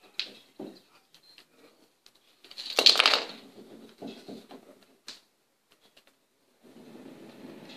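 Plastic Hot Wheels track pieces and connectors being handled and fitted together: scattered clicks and rattles, with a louder rustling scrape about three seconds in.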